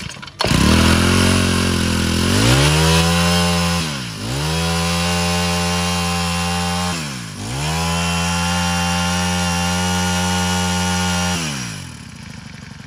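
Honda GX25 brush cutter's small four-stroke engine opening up suddenly and running at high revs, its pitch dipping briefly twice as the throttle eases and climbing back, then dropping to idle near the end.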